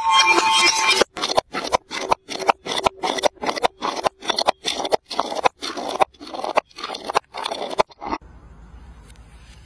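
Glass jar tumbling down concrete steps, knocking and scraping against the metal step edges about three times a second. The knocks stop suddenly about eight seconds in, leaving only a faint hiss.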